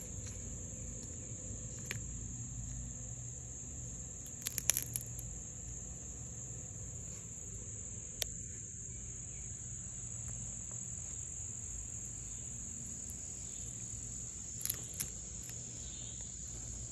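Steady, high-pitched trilling of insects, held without a break. A few sharp clicks stand out: a quick cluster about four and a half seconds in, a single one around eight seconds, and a couple more near the end.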